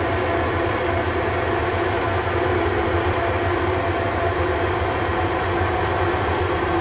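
Union Pacific freight grain train rolling past: a steady low rumble with a constant hum of tones over it, unchanging throughout.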